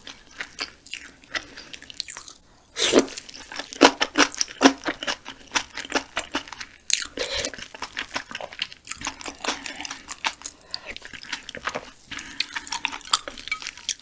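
Close-miked chewing and crunching of boiled frog meat from a clear frog soup: many irregular wet clicks and crunches in the mouth, a few louder ones along the way.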